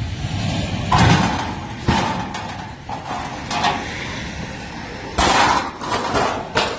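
Sheet-metal panels of a commercial rooftop AC unit being handled and clanking: several knocks with a short metallic ring, the loudest about a second in, and a longer clatter about five seconds in.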